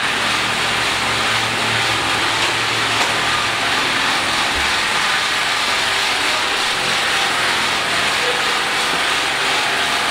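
Steady engine-like running noise, a continuous hum and hiss with no clear beat or change.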